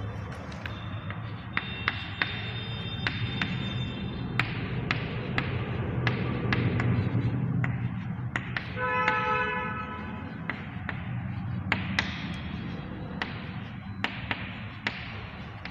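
Chalk tapping and scraping on a chalkboard as words are written out, in sharp, irregular taps about two a second. A steady low hum runs underneath.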